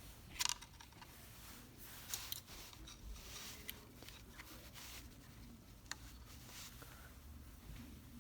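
Small sharp clicks and short scrapes of a screwdriver and wire being worked at the terminal screws of a garage door opener wall control. The loudest click is about half a second in, with a few more scattered through.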